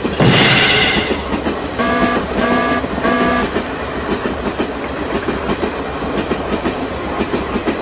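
Train passing: a loud horn blast in the first second, then three short horn toots, over a steady rumble and a regular clatter of wheels on the rails.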